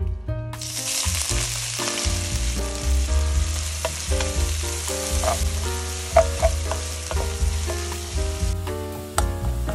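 Food sizzling as it fries in hot oil in a pan, starting about half a second in and stopping near the end, over background music.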